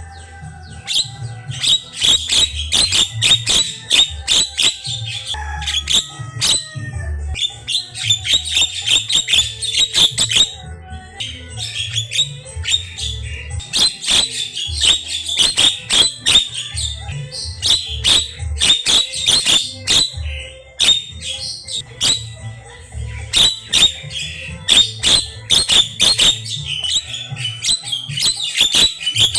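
Javan myna singing a long, varied song of rapid harsh clicks, squawks and chattering notes, in runs broken by short pauses.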